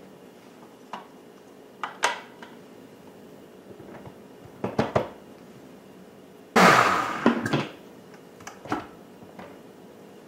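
A Vitamix blender run in one short burst of about a second, starting suddenly and dying away, to blend in basil leaves. Before and after it come several short clicks and knocks.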